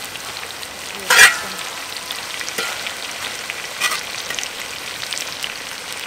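Grasshoppers and green onion frying in oil in a large wok: a steady sizzling hiss dotted with fine crackles. A metal spatula scrapes loudly against the wok about a second in, and more softly near four seconds.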